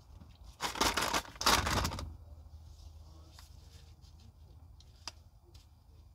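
Two loud rustling swishes back to back about a second in, tissues being pulled from a box, followed by a few faint small clicks.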